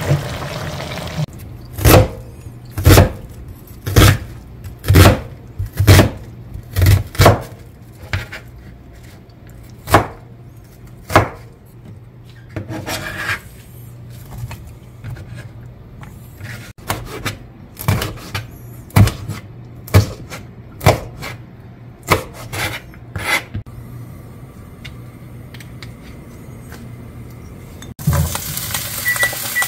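A wooden spoon knocks and scrapes against a stainless steel bowl as zucchini slices are tossed, with sharp knocks about once a second at first, then fewer. Near the end the zucchini is tipped into a hot frying pan and starts to sizzle.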